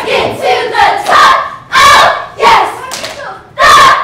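A cheer squad shouting a cheer together in short, loud bursts about every half to three-quarters of a second, with a short pause near the end.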